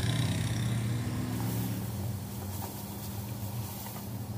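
A steady low hum over potatoes and beans frying in a pot on high heat, with faint sizzling and a few light scrapes and taps of a spatula.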